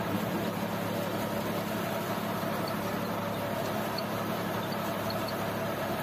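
John Deere tractor engine running steadily under load, with the PTO-driven rotavator of a super seeder churning through stubble and soil behind it.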